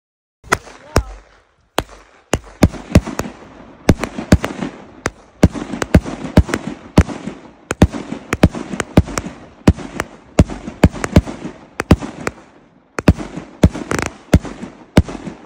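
Aerial fireworks bursting overhead: a rapid string of sharp bangs, about two a second, with a noisy rumble between them. It starts about half a second in.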